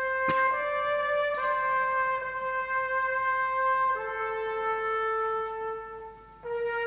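Solo trumpet playing a slow melody of long held notes. There is a brief dip for a breath about six seconds in, then the next note begins.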